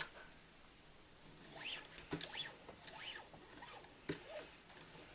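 Nylon paracord being pulled and worked through a snake knot: faint squeaky rubbing of cord on cord, several short squeaks in the middle, with a couple of small knocks.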